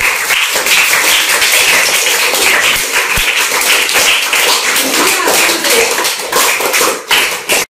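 A classroom of schoolchildren applauding: many hands clapping fast and evenly.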